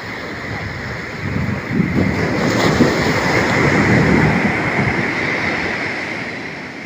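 Ocean surf on a beach: a wave breaks about two seconds in, its rushing noise swelling and then slowly fading.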